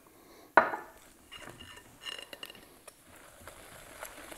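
A sharp knock with a short ring about half a second in, then a whisk clinking against a glass mixing bowl and scraping through thick beer batter.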